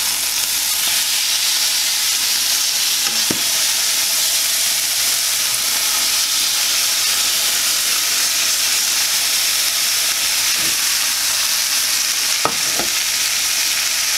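Chicken breasts sizzling steadily in hot oil in a frying pan, with a few small knocks as a fork turns the pieces.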